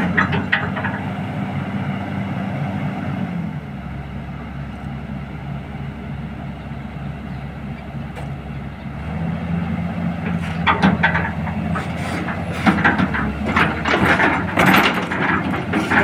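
XCMG XE215C crawler excavator's diesel engine running steadily. Its note drops to a lower hum about three and a half seconds in and comes back up about nine seconds in.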